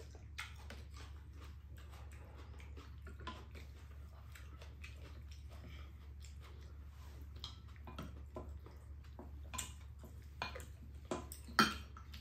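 Spoons and chopsticks clinking and scraping against ceramic bowls as two people eat, in scattered small taps that grow louder and more frequent in the last few seconds, over a low steady hum.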